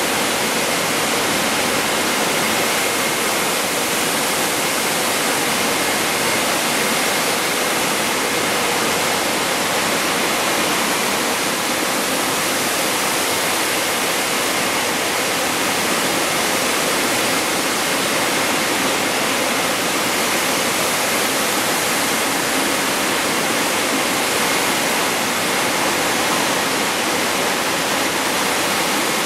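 Blowers of a stainless steel air drying line forcing air down through overhead nozzles onto a mesh conveyor: a steady, loud rush of air with a faint high whine.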